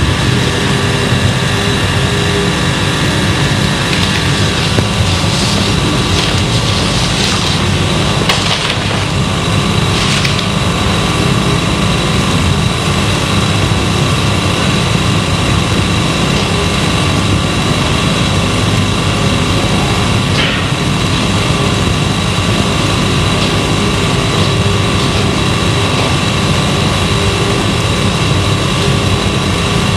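Steady, loud hiss and hum of a worn analogue film or tape recording, with a few faint clicks or knocks.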